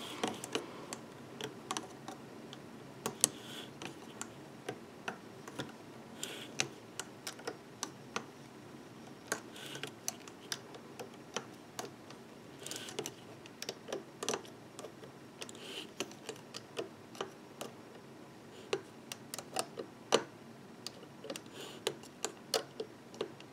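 Metal loom hook clicking and tapping against the plastic pegs of a rubber-band loom as the bottom bands are hooked up and over each peg: a run of light, irregular clicks and small snaps.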